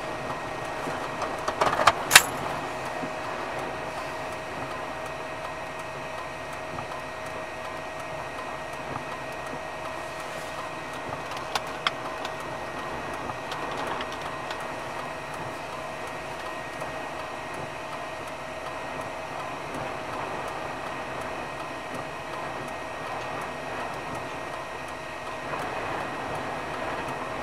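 Vehicle interior noise: steady road and engine noise with a faint steady hum. A few sharp clicks about two seconds in, the loudest sounds, and a couple more near twelve seconds.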